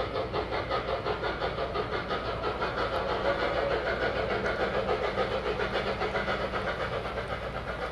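Fast, even steam-locomotive chuffing with hiss, several beats a second, played through the speaker of the Soundtraxx 4400-series sound decoder in an O-scale model of Northern Pacific Q-3 steam locomotive 2156 as it runs.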